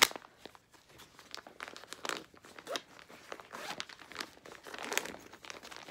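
Clear plastic bags crinkling and rustling in irregular crackles as they are handled and opened, with a sharp crackle right at the start.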